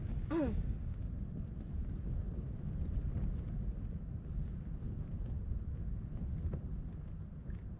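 Low steady wind rumble on the microphone inside an ice-fishing tent, with a few faint clicks. A brief voice sound, falling in pitch, just after the start.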